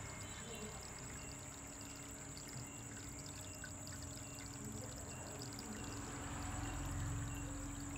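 Water pouring and trickling steadily into a small ornamental fish tank, with a faint steady hum joining about a second in.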